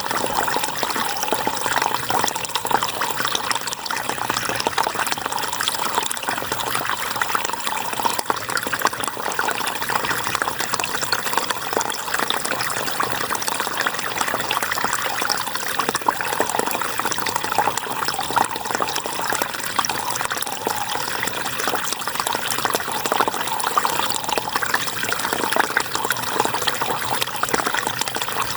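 River water flowing and splashing over rocks, a steady rush with fine bubbling and trickling.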